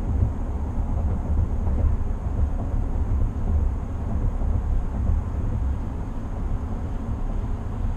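Steady low road rumble inside the cab of a 2020 GMC Sierra 1500 AT4 pickup cruising at highway speed, with no distinct events.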